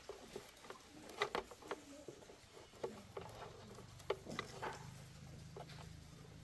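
Scattered light clicks and taps of small parts and tools being handled, with a steady low hum starting about three seconds in.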